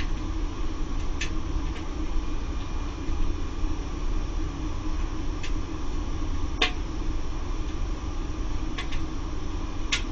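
Circulation pump on a Laddomat 21 wood-boiler loading unit running with a steady hum and low rumble, with a few sharp ticks at irregular moments, about a second, five and a half, six and a half, nine and ten seconds in.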